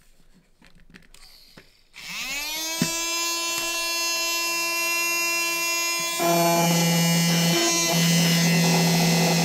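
Small electric blower motor of a Barrel Cooler rifle barrel cooler, blowing through a cartridge-shaped chamber insert, switching on about two seconds in. Its whine rises in pitch as it spins up, then holds steady. About six seconds in, a louder low hum joins and stays.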